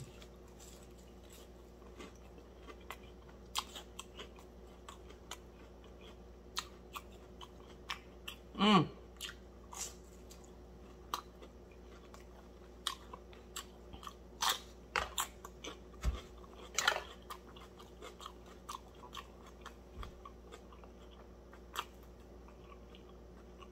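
Chewing crunchy fried fish close to the microphone: scattered crisp crunches and mouth clicks. There is one short hum of the voice about nine seconds in.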